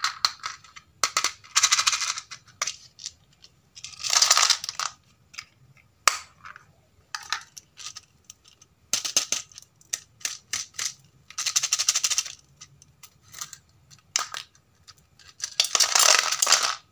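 Small loose plastic pieces rattling and clattering in a plastic tub as hard plastic toy animals are pushed in and moved about. It comes in bursts of about a second, with scattered sharp clicks of plastic between them.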